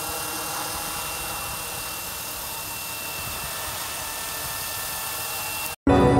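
Goosky E2 200-size electric RC scale helicopter in flight: a steady hiss with a thin, high, steady whine. It cuts off suddenly near the end.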